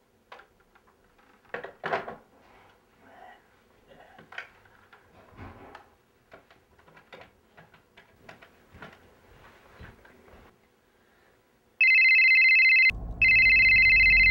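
Soft scattered clicks and knocks as a corded landline handset is handled and its buttons pressed. Then, near the end, a phone rings loudly with a steady electronic ring: a short ring, a brief break, then a longer one, with low car road noise under the second ring.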